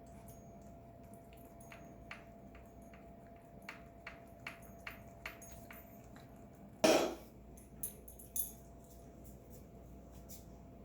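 A pet coughing: a run of faint clicks, then one loud cough about seven seconds in, followed by two smaller ones.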